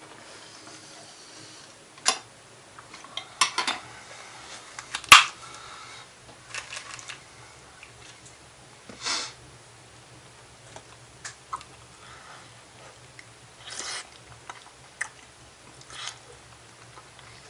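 A metal spoon clinking and scraping against a metal cooking pot at irregular moments during a meal, the sharpest clink about five seconds in, with chewing between.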